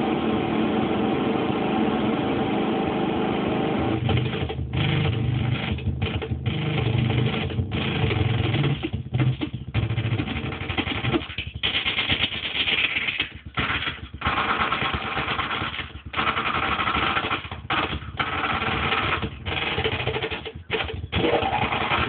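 Modular synthesizer playing a drum-loop sample from an SSL Samplecorder, its pitch and filtering changed live through a Metasonix R54 filter, giving a dense, noisy, machine-like texture. From about four seconds in it keeps breaking off in short gaps, roughly once a second, and the low end swells for several seconds.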